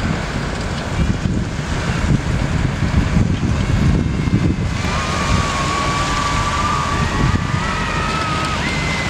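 Wind buffeting the microphone, a gusty low rumble throughout. From about five seconds in, thin wavering high whistling tones come and go over it.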